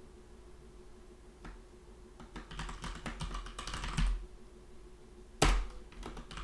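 Computer keyboard typing: a quick run of keystrokes starting about a second and a half in, then one louder knock about five seconds in.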